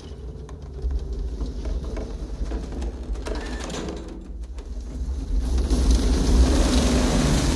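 Ride mine cart rumbling and rattling along rails, with a steady deep rumble and fast clatter that swells louder about five and a half seconds in.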